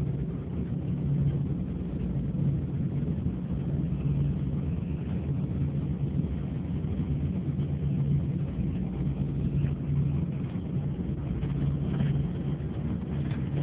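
Long-distance coach's engine and road noise droning steadily inside the passenger cabin, with a strong low hum.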